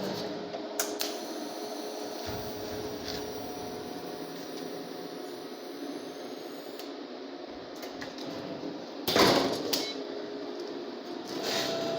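CNC-driven robot TIG welding rig running: a steady hiss with faint humming tones, and a short loud burst about nine seconds in.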